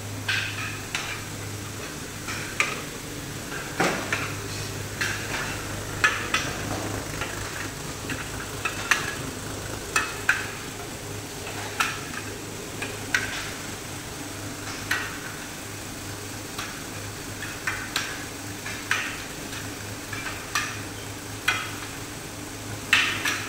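Paint-brush combing machine running: a steady electric-motor hum under the spinning combing drum, with sharp metallic clicks and clatters at irregular intervals of about a second.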